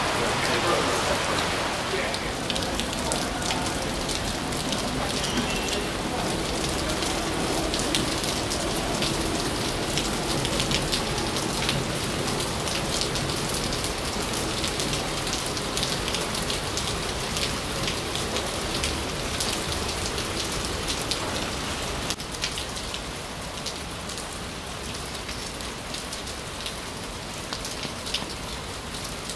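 Heavy rain falling on a wet timber boardwalk: a steady hiss dotted with close drop impacts, easing slightly about three quarters of the way through.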